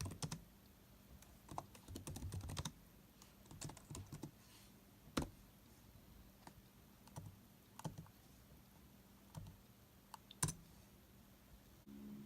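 Computer keyboard typing, a quick flurry of keystrokes in the first few seconds, then scattered single key presses.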